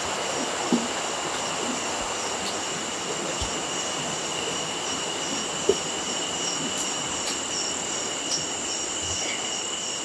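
Night insects, mostly crickets, sounding in a steady high-pitched chorus with a regular repeated chirp, over a background hiss. Two soft knocks, one about a second in and one about halfway through.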